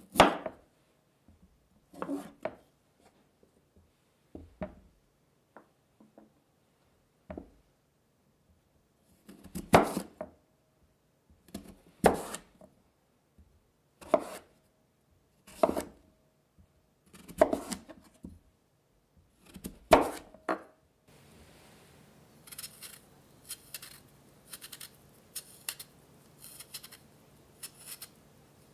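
Chef's knife slicing whole raw sweet potatoes into thick rounds on a wooden cutting board: about ten separate cuts, each ending in a sharp knock of the blade on the board. From about 21 seconds in, quick short scraping strokes of a peeler stripping the skin off a cut round.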